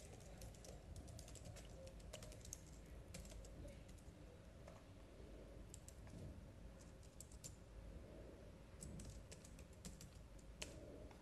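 Faint computer keyboard typing: irregular keystrokes coming in short runs with pauses between them.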